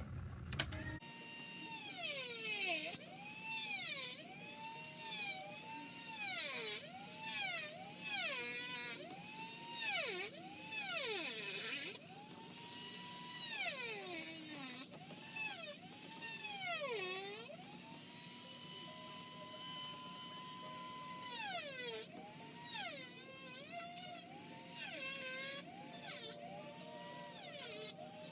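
Dremel rotary tool starting up about a second in and cutting into a plastic blaster shell: its high whine repeatedly drops in pitch as the bit bites into the plastic and climbs back as it is eased off, with a few seconds of steady free-running whine about two-thirds of the way through.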